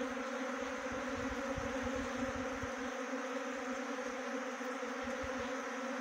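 Swarm of honey bees buzzing around a wooden hive box: a steady, unbroken hum of many bees in flight.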